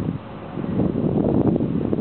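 Wind buffeting the microphone, an irregular low rumble that swells and dips in gusts, with no clear engine note or horn.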